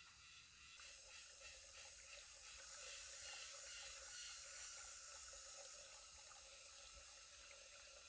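Shallow forest stream trickling faintly over stones, coming in about a second in.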